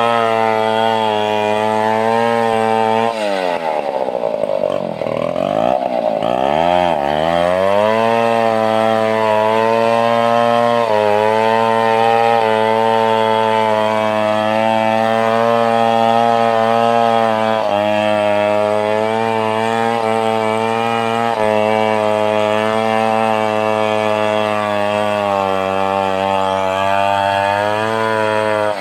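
Stihl 070 two-stroke chainsaw running at high revs while cutting timber. About three seconds in, the engine speed drops off and climbs back up over a few seconds, then holds steady again.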